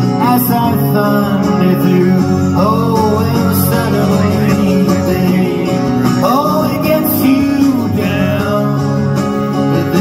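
Solo folk performance: a twelve-string acoustic guitar played steadily, with a man singing over it in a few long phrases that slide up into their notes.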